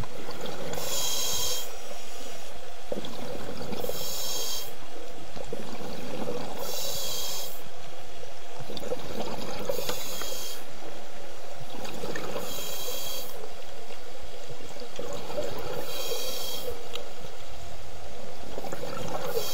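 Scuba diver breathing through a regulator underwater: a hiss about every three seconds, with steady underwater bubbling noise between.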